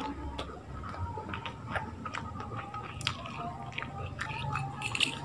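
A person chewing a mouthful of rice and chilli eggplant, with many small irregular wet mouth clicks and a sharper click about three seconds in.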